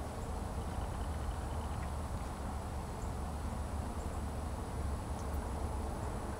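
Outdoor ambience in the open: a steady high insect drone over a low, uneven rumble of wind on the microphone, with a faint short chirring about a second in.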